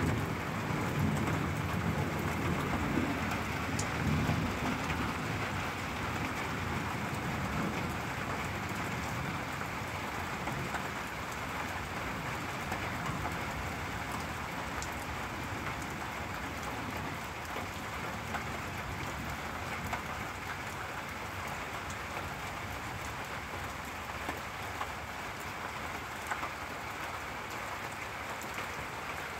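Steady rain falling during a thunderstorm, with a low rumble of thunder that fades out over the first several seconds.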